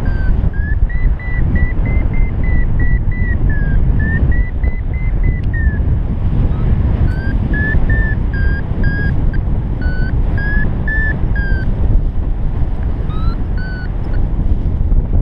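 Wind rushing over the microphone in paraglider flight, with a flight variometer beeping quickly over it, about two or three beeps a second and wavering in pitch: its climb tone, signalling lift. The beeping breaks off about six seconds in, resumes a second later for about five seconds, and sounds briefly again near the end.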